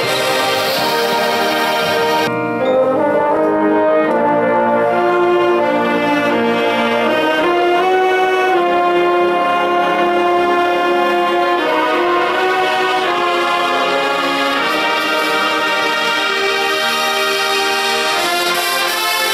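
Marching band of woodwinds and brass, with flutes, clarinets, saxophones, trumpets and sousaphones, playing a passage of held chords that move every second or so. About two seconds in the sound briefly thins, then swells again.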